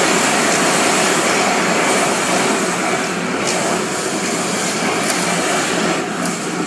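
Steady, loud machine noise in a metalworking workshop: an even rushing hiss with a faint constant whine, cut in and out abruptly.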